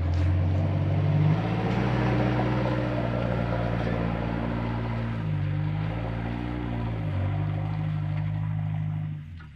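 Mitsubishi Triton ute's engine running under load as it crawls up a muddy, rutted track, heard through a dumped exhaust (a cheap dump pipe ahead of the diff). The engine note steadies, dips and picks up again around five to seven seconds in, then fades near the end.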